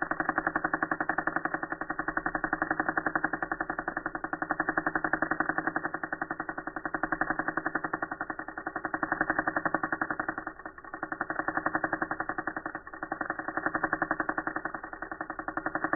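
Tattoo machine buzzing as it drives the needle into skin, slowed down so the buzz becomes a low, rapid, engine-like pulsing. The pulsing dips briefly twice, about ten and thirteen seconds in.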